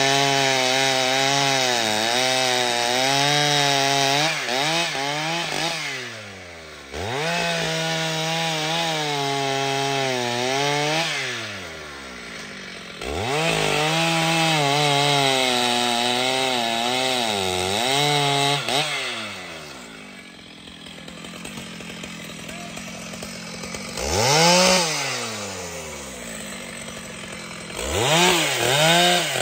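Large professional two-stroke chainsaw cutting wood at high revs, its pitch wavering and sagging under the load of the cut. Several times it drops back toward idle and sweeps back up to full throttle, with one quick rev before it settles back into cutting near the end.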